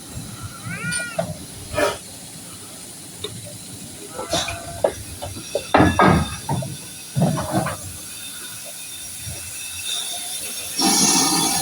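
A steam locomotive starts blowing off steam near the end, a loud steady hiss. Before it there are scattered short sounds, among them a brief rising-and-falling call about a second in.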